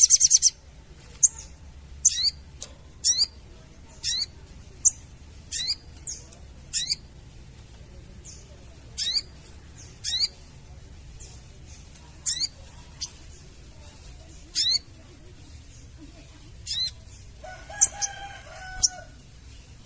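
Sogon bird calling: short, high notes, each a quick sweep, repeated about once a second with uneven gaps. A burst of dense chattering opens the passage, and near the end comes a lower, harsher call lasting about a second.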